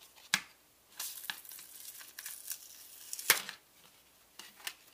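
A plastic disc being peeled off the double-sided tape that holds it to a push light's plastic housing: a sharp click, then a couple of seconds of tearing and crackling, a loud snap about three seconds in, and two light plastic clicks near the end.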